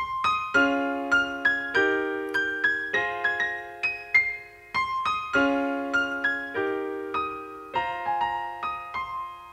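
Solo keyboard in a piano sound playing the song's intro: repeated chords with a melody on top, each note struck and left to ring and fade, no drums or other instruments.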